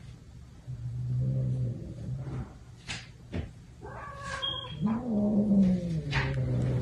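Cat making long, low-pitched calls, several in a row, one of them rising and falling in pitch, with a short higher-pitched call about four seconds in.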